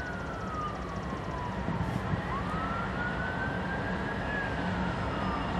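A distant siren wailing: one tone sliding slowly down, then rising and falling again. Under it runs the steady low rumble of the approaching GE Dash 9-40CW diesel locomotive.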